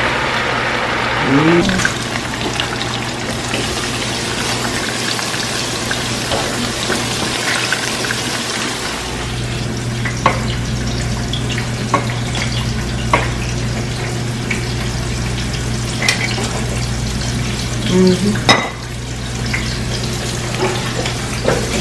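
Steady sizzle of pork chops frying in a skillet, with scattered clicks and knocks of utensils and dishes. A low hum grows louder about nine seconds in.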